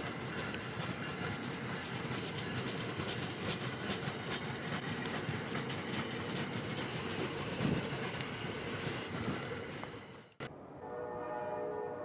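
Amtrak passenger train behind an ACS-64 electric locomotive rolling past at restricted speed, a steady rumble with wheels clicking over rail joints. About ten seconds in, the sound cuts off abruptly and a train horn sounds a sustained chord.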